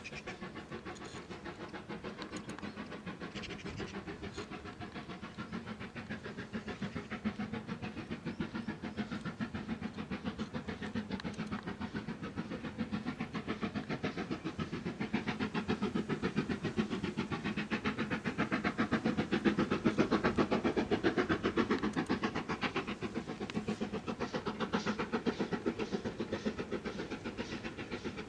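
Steam locomotive working a train in the distance: a fast, steady run of exhaust chuffs that grows louder, loudest about twenty seconds in.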